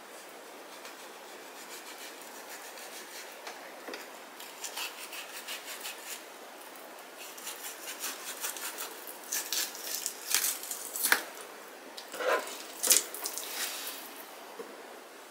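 Kitchen knife skinning a sea bream fillet on a bamboo cutting board: soft scraping and squishing of the blade along the skin, with a few sharper knocks and scrapes from about nine to thirteen seconds in as the knife and skin meet the board.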